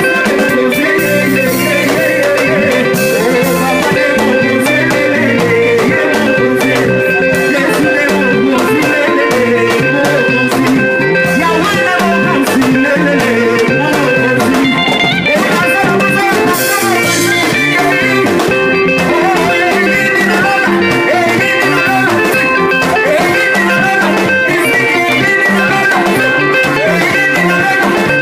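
Live band music played loud through PA speakers, with an electric guitar prominent.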